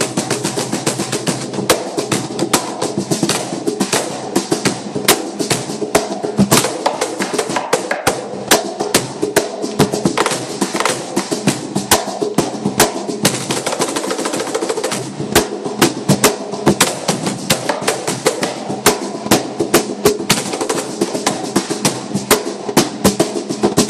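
Flamenco cajón played with both hands: a fast, continuous run of sharp slaps and softer taps on its wooden front plate.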